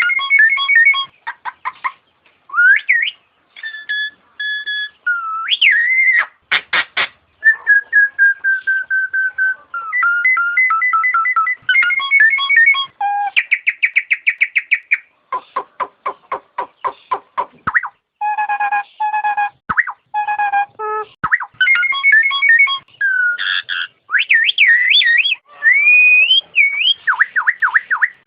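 Nias hill myna calling in a varied string of loud, clear whistles: held notes, rapid runs of short repeated notes and quick rising and falling glides, with short pauses between phrases.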